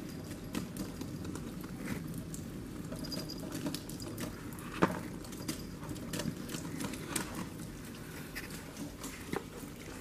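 A white Persian cat pawing at a thin stream of tap water in a metal sink: irregular light taps and small splashes over a faint running trickle, with one sharper knock about five seconds in.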